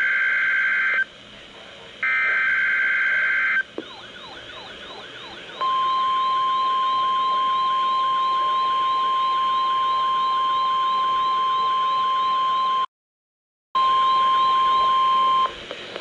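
The last two bursts of a NOAA Weather Radio SAME alert header, harsh buzzy data screeches about a second each, marking a Required Weekly Test. A weather radio's alarm then sounds, a rapidly repeating sweeping siren, and a steady single-pitch warning tone joins it. Both cut out for under a second near the end, come back, then stop.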